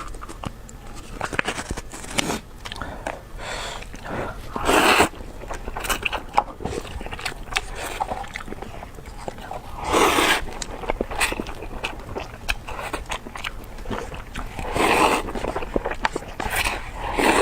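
Close-miked eating sounds: a person biting and chewing with many small wet clicks, and a louder noisy burst about every five seconds.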